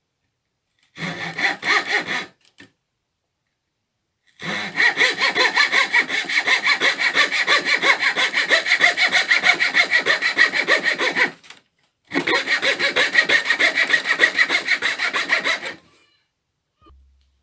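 Coping saw cutting through a hardwood floorboard in three runs of quick back-and-forth strokes, about four a second, the middle run the longest, with short pauses between runs.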